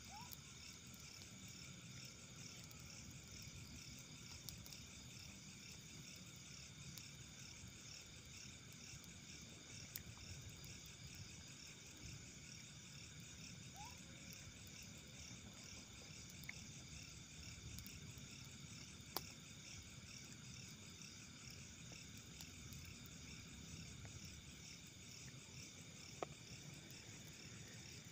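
Faint night insect chorus: crickets chirping steadily in several overlapping high pitches, with a few sharp clicks.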